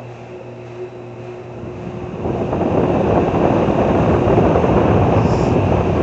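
Carrier WeatherShield air-conditioner condenser unit starting back up: over a steady hum, a loud rush of air from its fan rises about two seconds in and holds.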